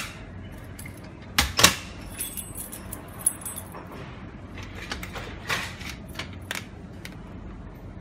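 Metal objects being handled: sharp clicks and a jingling rattle, strongest about one and a half seconds in and again in a cluster around five to six and a half seconds.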